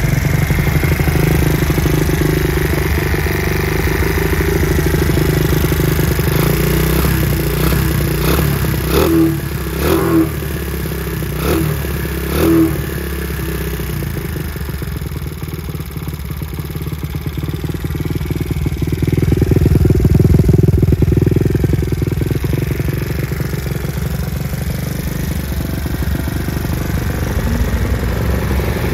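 Honda Gorilla Z50J's small four-stroke single-cylinder engine idling through a Takegawa full exhaust, with four short throttle blips about a third of the way in before it settles back to idle. It runs louder for a few seconds past the middle.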